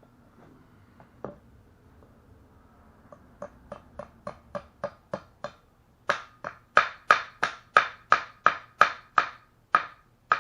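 Steel hammer beating a U-joint bearing cap into a driveshaft yoke: a steady run of about twenty sharp metallic blows, about three a second, light at first and much harder from about six seconds in.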